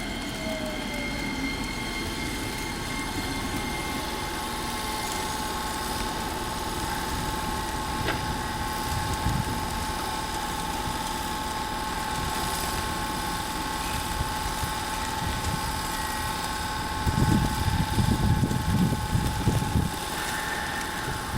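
Electric commuter train standing at a station platform, its on-board electrical equipment giving a steady whine over a low hum, with a falling motor-inverter pitch fading out at the start as the train comes to a stop. Gusts of wind buffet the microphone near the end.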